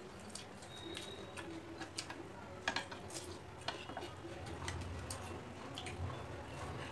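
Close-up eating sounds: scattered soft clicks and smacks of chewing and of fingers and cutlery working food on the plates, at an uneven pace.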